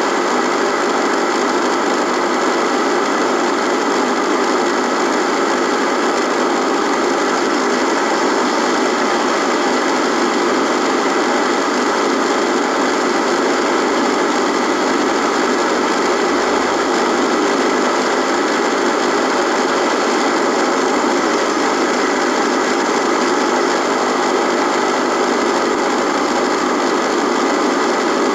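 Radio buzzing: a steady electrical buzz and static hiss with a constant hum running through it, unchanging throughout.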